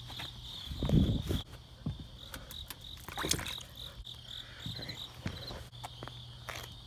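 Night insects trilling steadily in a high-pitched chorus, over a faint low steady hum, with a few scattered knocks and rustles from handling a frog.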